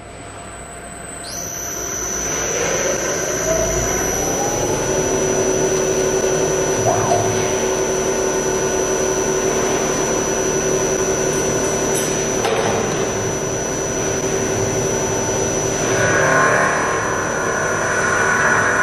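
CNC wood lathe's spindle starting up: a high whine comes in about a second in, and a tone rises in pitch over the next few seconds as the chuck and square wooden blank spin up, then holds steady. Near the end the tool starts cutting into the end of the spinning blank for the inside of a cup, adding a louder cutting noise.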